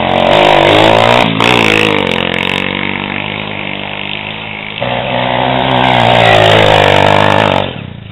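Dirt bike engine revving hard close by, its pitch sweeping down and back about a second and a half in. It settles lower, revs up loudly again at about five seconds as the bike climbs, then drops away near the end.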